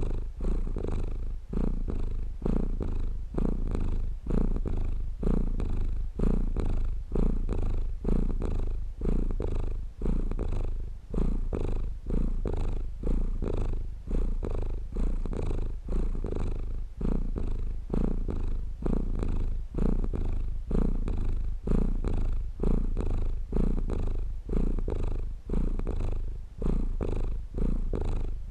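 Domestic cat purring close up, a steady low rumble that swells and fades rhythmically with each breath, a little more than once a second.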